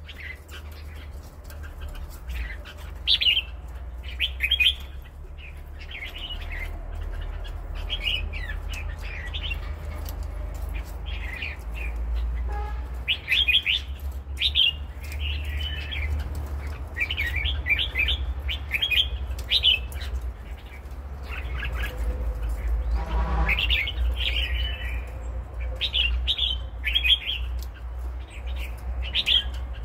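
Red-whiskered bulbul singing short, chirpy phrases again and again, over a low steady background rumble.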